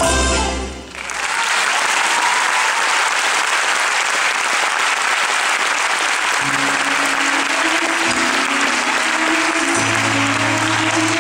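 The music stops about a second in and an audience breaks into steady applause. About halfway through, long held notes of the next piece of music begin under the clapping.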